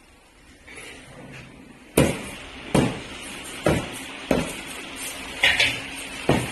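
Hammering in a workshop: a series of sharp knocks about one a second, beginning about two seconds in, over a steady background noise.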